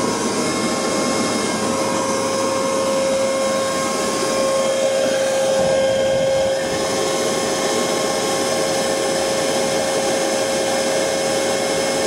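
Leaf blower running steadily at a turned-down setting, blowing air through a diesel heater's exhaust heat exchanger: a constant rush of air with a steady whine.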